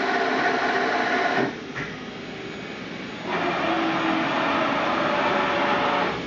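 Milltronics Partner VI CNC vertical machining center running with its spindle turning: a steady mechanical whir with several held tones. It drops much quieter about a second and a half in, then comes back up about two seconds later.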